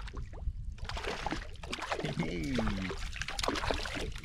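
Water splashing and sloshing as hooked mackerel thrash at the surface beside a kayak while being reeled in on feathers, with a run of short sharp splashes and knocks. The splashing starts about a second in.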